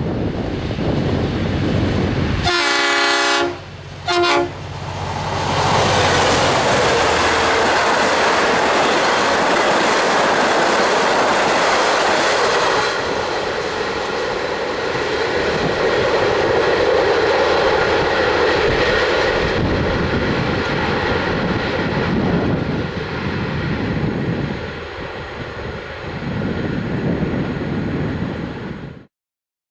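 V/Line N class diesel locomotive with an EMD 12-645E3C engine sounds its multi-note horn, one long blast and then a short one, as a warning for the level crossing. It then passes loudly hauling its passenger carriages. The rolling of the carriages fades as the train moves away, until the sound cuts off suddenly near the end.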